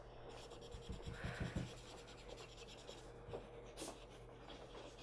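Faint scratching and rubbing of a pointed drawing tool on chalk-pastel-covered paper in short strokes, as a figure is blended, over a steady low hum. One sharp click comes near the end.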